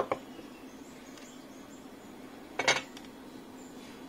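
A sharp click, then about two and a half seconds later a short clattery tap: tools and a circuit board being handled on a workbench while a capacitor is soldered in. A faint steady hum runs underneath.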